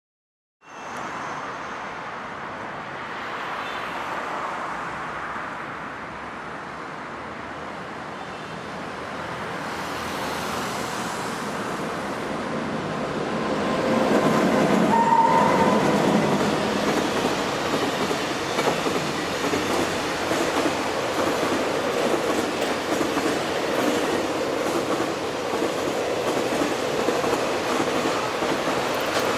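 Freight train hauled by a Shaoshan SS3B electric locomotive passing, its wagons clattering over the rail joints. The sound grows louder until about halfway, then holds steady as the wagons roll by.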